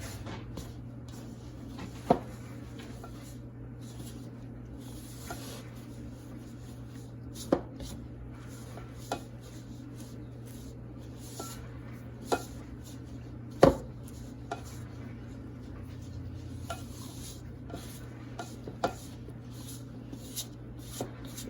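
Cookie dough being stirred by hand in a mixing bowl, the utensil knocking and clinking against the bowl at irregular moments, a dozen or so times, with one louder knock about two-thirds of the way through.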